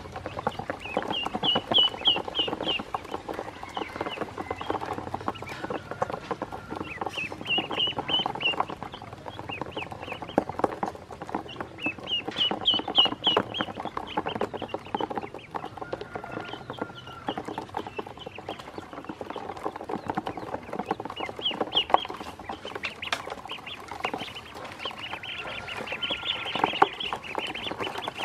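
Ducklings peeping in runs of quick, short, high chirps that come every few seconds, with many small taps and clicks of their bills and feet in a plastic basin.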